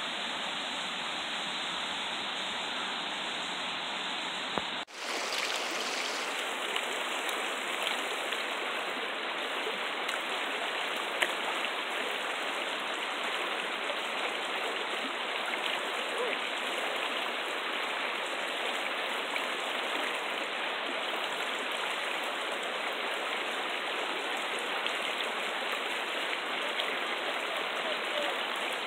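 Shallow river running over rocks, a steady rush of water, with a brief dropout about five seconds in.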